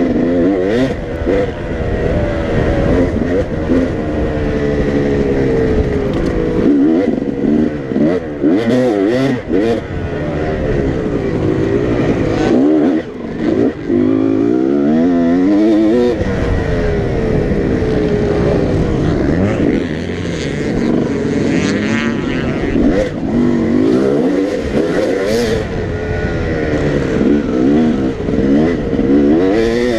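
Dirt bike engine at race pace, revving up and falling back over and over as the rider accelerates, shifts and backs off through the track's straights and turns.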